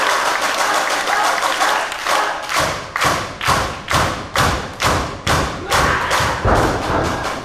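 Audience clapping in a hall. Scattered applause turns, about two and a half seconds in, into steady rhythmic clapping at about two claps a second.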